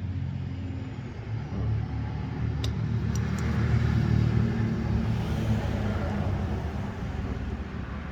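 A vehicle engine running, a low steady rumble that swells around the middle and eases off again, with a few faint clicks.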